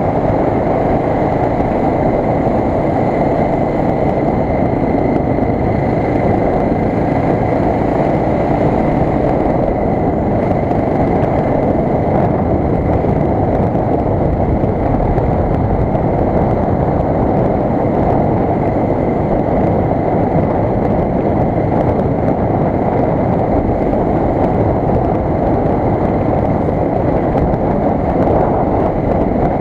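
1986 Suzuki DR 600's single-cylinder four-stroke engine running at a steady, even level as the motorcycle rides along.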